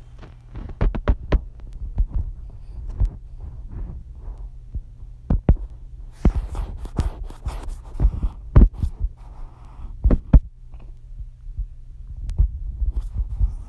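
A baby mouthing and gnawing on her own hand close to the microphone: irregular wet smacks, clicks and dull thumps, over a low steady hum.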